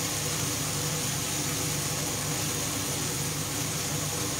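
Steady hum of a kitchen range hood fan, with an even hiss over it.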